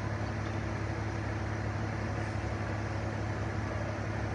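Steady low hum of an idling engine, even and unbroken, with a constant low drone over outdoor noise.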